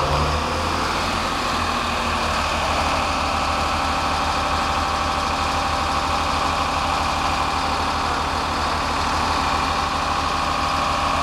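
Diesel engine of a Mercedes-Benz concrete mixer truck running steadily at low revs, with a fast low throb.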